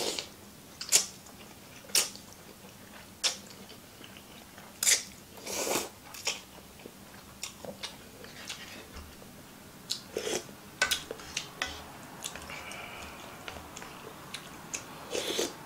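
A person eating ramen noodles: slurping and chewing, with scattered sharp mouth clicks and smacks. The longest slurps come about five seconds in and again near the end.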